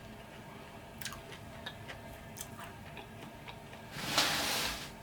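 Close-up mouth sounds of eating chicken wings: soft chewing with small wet clicks and smacks. A brief louder hiss-like noise about four seconds in, lasting under a second.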